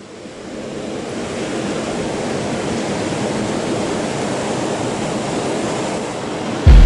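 Steady rush of ocean surf, fading in over about the first second and then holding even. A loud sudden start of music cuts in just before the end.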